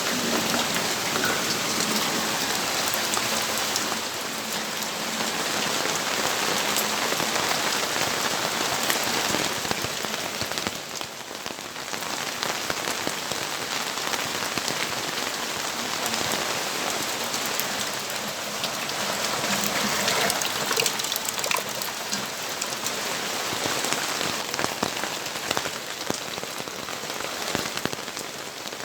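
Steady rain falling, with many individual drops pattering on hard surfaces close by; it eases briefly about eleven seconds in.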